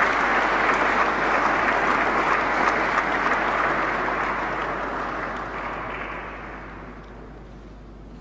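Audience applauding, steady at first and then dying away over the last few seconds.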